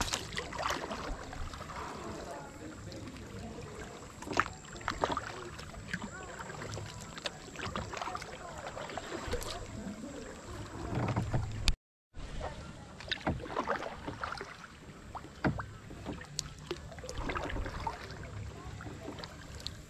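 Kayak paddling: paddle blades dipping and splashing at an uneven pace, with water dripping and lapping along the plastic hull. The sound cuts out completely for a moment about halfway through.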